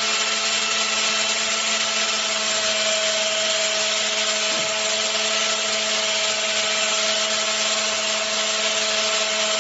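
Handheld angle grinder running steadily while cutting hair: a constant loud hiss with an even whine, no change in speed.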